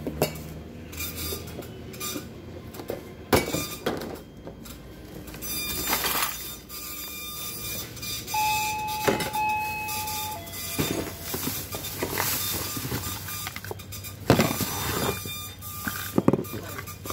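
Handling noise from unpacking tricycle parts: cardboard cartons knocked and shifted, then a thin plastic bag of parts rustling as it is lifted and rummaged through, with scattered knocks and clicks. A short steady tone sounds for about a second and a half in the middle.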